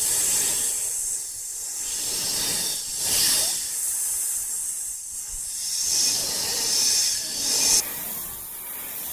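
A loud, noisy hiss that swells and eases several times, with a sudden drop in its high part near the end.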